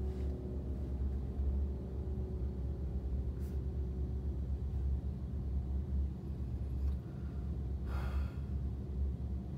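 2016 Subaru Legacy's engine idling while the car stands still, heard from inside the cabin as a steady low rumble. A brief hiss about eight seconds in.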